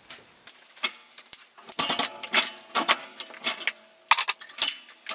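A string of irregular sharp clicks and knocks with a faint metallic ring, as a wooden stretcher bar is handled and worked in a manual framing mitre saw. The knocks come thicker and louder from about halfway through.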